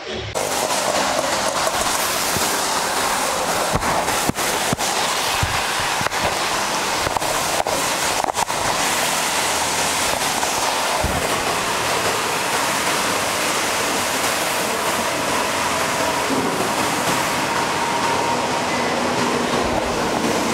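Heavy rain pouring down, a steady dense hiss, with a few sharp ticks in the first half.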